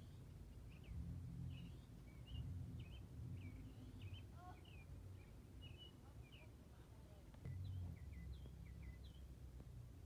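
Birds chirping faintly, a string of short, quick chirps through most of the stretch, over a low background rumble.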